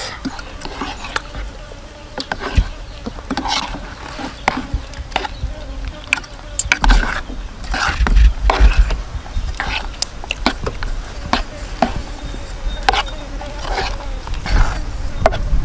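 A metal spoon stirring chicken hearts into thick batter in an aluminium pot: irregular clinks and scrapes of spoon against pot, with a low rumble about eight seconds in.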